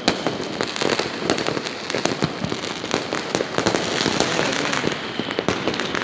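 Many fireworks and firecrackers going off at once from all directions: a dense, unbroken crackle of bangs, near and far.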